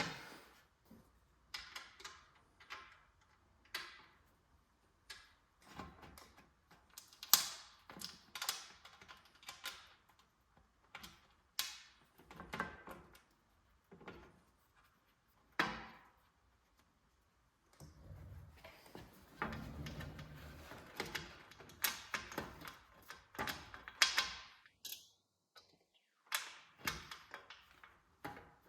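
Irregular clicks and knocks of hand work on parts, with a few seconds of rubbing and scraping in the middle of the second half; no engine running.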